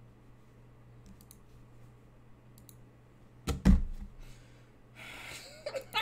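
A few faint clicks over a low steady hum, then a single loud thump about three and a half seconds in. Voices begin near the end.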